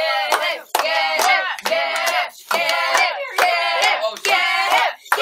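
A group of children chanting a short cheer over and over in rhythm, with hand claps on the beat.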